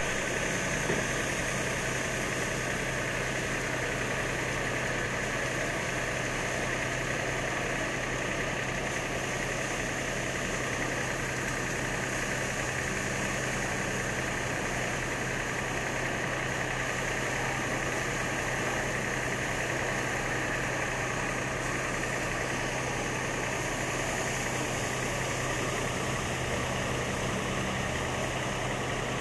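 Wheat harvesting machine running steadily: a constant low engine hum under an even mechanical noise, with no change in speed.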